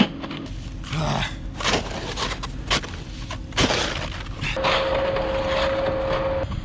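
A snow shovel scraping and digging in packed snow in a run of short, uneven strokes, clearing snow to free a stuck van. A steady tone sounds for about two seconds in the second half.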